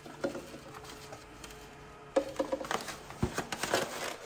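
Foam egg carton being handled and shut, with eggs in it: a faint steady hum at first, then from about two seconds in a run of irregular light clicks, taps and rustles.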